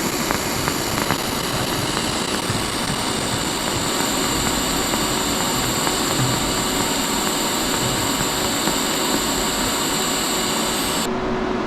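TIG welding arc running steadily as a hiss and buzz with high, even tones, then cutting off suddenly about eleven seconds in as the weld is finished.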